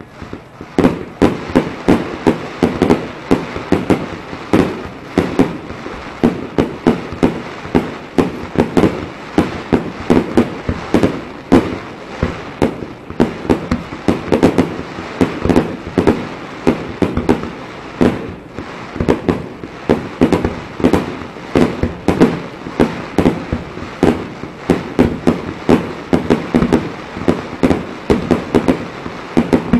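Aerial fireworks bursting in a rapid, continuous barrage that starts suddenly, with about two big bangs a second and smaller pops and crackles in between.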